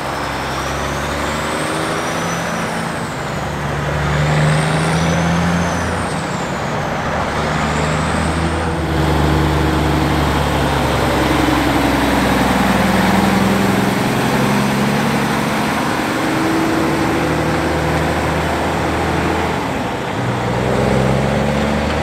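Heavy diesel trucks pulling away at low speed one after another, the engine note rising and falling through gear changes. A high whistle sweeps up and down over the first several seconds.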